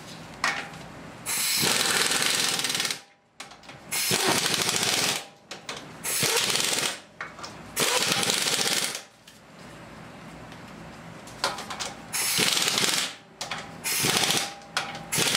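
Air impact wrench running lug nuts onto a wheel in about six short bursts of rapid hammering, each a second or so long, with brief pauses and small clicks between them. The nuts are being run on loosely, not torqued.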